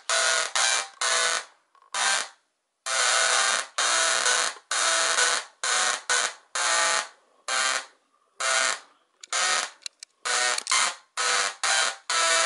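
Small double-resonant solid-state Tesla coil (DRSSTC) firing sparks in many short on-off bursts. Each burst is a loud, steady-pitched buzz that starts and cuts off abruptly, with brief pauses between bursts.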